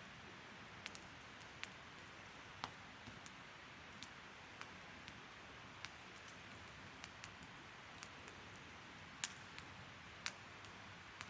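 Wood fire crackling: a soft steady hiss with sharp, irregularly spaced pops and snaps, the two loudest near the end.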